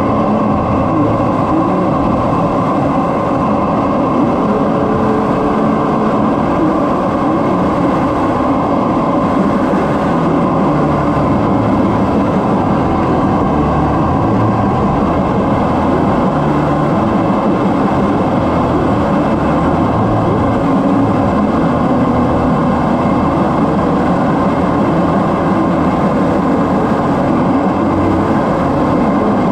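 Steady, loud drone of a Snowbirds CT-114 Tutor jet in flight, heard from its cockpit: the whine of its single turbojet engine under the rush of air over the canopy, unchanging in level.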